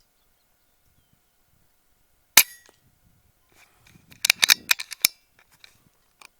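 A single sharp shot from a .30 calibre HM1000X PCP air rifle, the loudest sound, about two and a half seconds in. About a second later comes a quick run of sharp metallic clicks and clacks from the rifle being handled, with one faint click near the end.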